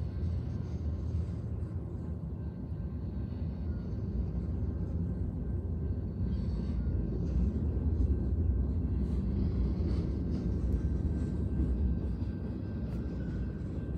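Freight train of covered hopper cars rolling past: a steady low rumble of steel wheels on rail, with a few faint clicks.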